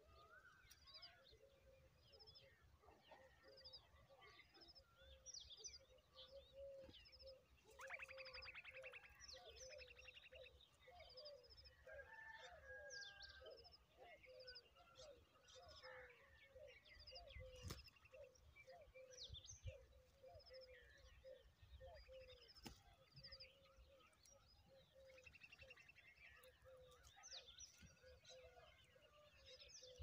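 Faint chorus of wild birds: short high chirps repeating throughout, with other birds calling over them and a brief rattling trill about eight seconds in.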